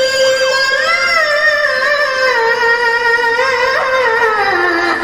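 A boy's high, clear voice in melodic Quran recitation (tilawah), sung into a handheld microphone: one long held note with wavering ornaments that slides lower near the end.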